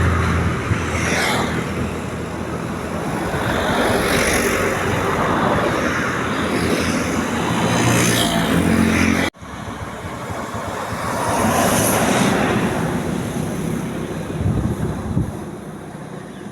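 Road traffic passing close by: engine hum and a rush of tyre and wind noise that swell and fade as vehicles go past. The sound cuts off abruptly about nine seconds in and then picks up again.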